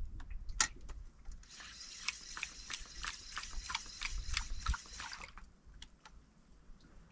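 Fishing reel clicking rapidly, about five ticks a second, for about four seconds, then stopping. A low rumble runs underneath.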